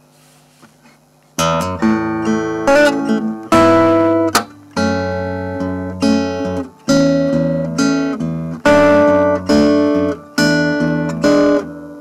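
Acoustic guitar strumming chords in a steady rhythm through a NUX Stageman AC50 acoustic amp, starting about a second and a half in. The chords are being recorded as a loop by the looper, which is in record mode.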